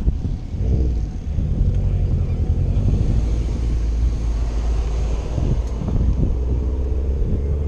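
Wind buffeting a bike-mounted action camera's microphone as a low, steady rumble while the bicycle rides through traffic. Car engines run alongside, and one engine's hum, rising slightly in pitch, grows clearer near the end.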